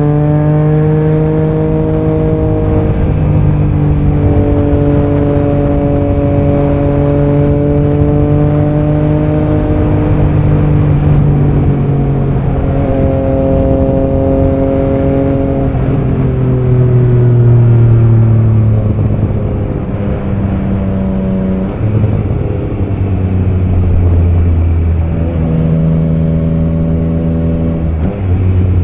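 Triumph Trident 660's inline three-cylinder engine running on the move. It holds a steady note for stretches, and the pitch steps or slides up and down several times as the bike changes gear and the throttle is rolled on and off.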